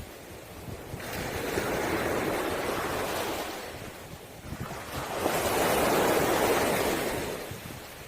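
Sea waves breaking on a pebble beach: two surges of rushing water a few seconds apart, the second louder.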